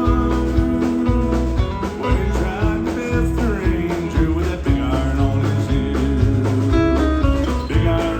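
Live country band playing, a guitar to the fore over a steady bass beat, with some singing.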